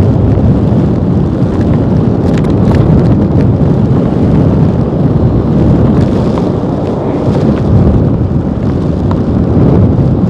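Wind buffeting a foam-covered helmet microphone on a moving motorcycle: a loud, steady low rumble.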